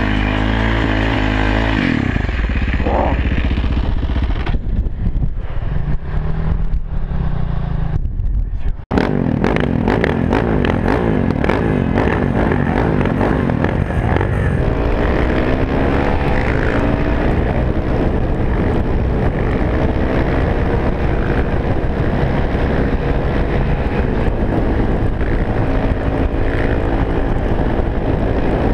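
Supermoto motorcycle engine running and revving under the rider, its pitch rising and falling with the throttle, with a brief sudden break about nine seconds in.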